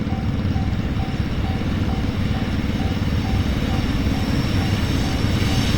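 Japanese railway level-crossing warning bell ringing repeatedly, about two strikes a second, the signal that a train is coming. Under it a train's low rumble grows steadily louder as it approaches.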